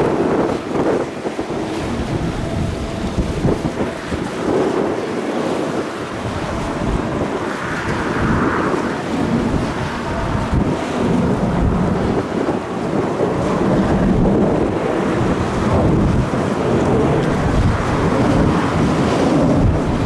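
Strong gusting wind buffeting the microphone: a loud, rumbling noise that rises and falls unevenly with the gusts.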